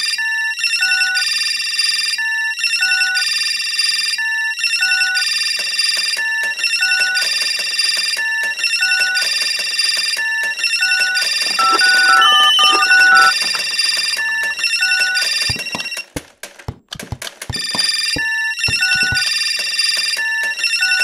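Electronic telephone ringing: short two-note figures of bright electronic tones repeating about once a second. About 16 s in it breaks off for a run of sharp clicks, then the ringing starts again.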